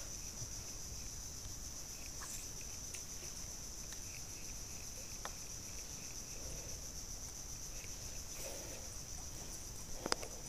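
Faint, steady high-pitched drone of insects, with a few soft clicks and one sharper click near the end.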